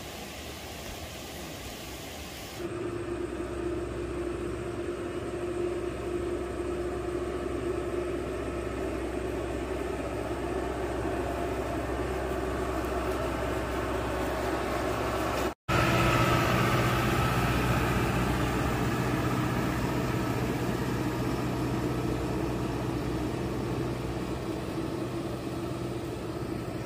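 An engine running steadily with an even hum. It gets louder about three seconds in, cuts out for an instant about halfway through, then carries on.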